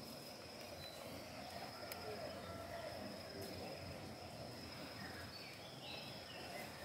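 Steady outdoor background: a constant high-pitched insect drone over a low even hiss, with one faint click about two seconds in.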